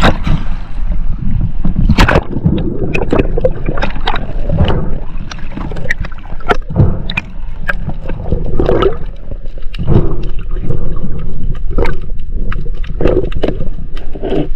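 Water sloshing and gurgling close to the microphone, with irregular knocks scattered through it.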